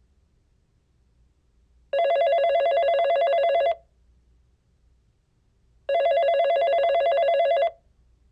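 Telephone ringing: two rings of about two seconds each, four seconds apart, each a rapidly warbling tone.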